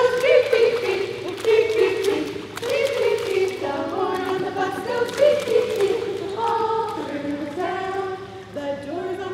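A group of parents singing a nursery song together, unaccompanied.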